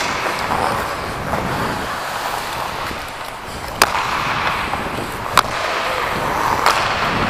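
Ice hockey skates scraping and gliding on rink ice, heard close up from a player's helmet camera, with two sharp clacks of hockey gear striking, about four and five and a half seconds in.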